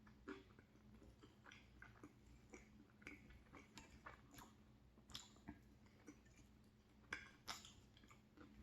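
Faint close-up chewing of macaroni and cheese: soft wet mouth smacks and clicks scattered throughout, a few sharper ones about five and seven seconds in.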